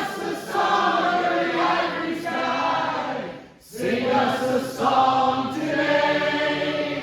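Many voices singing a chorus together in two long held phrases, with a short break about halfway through.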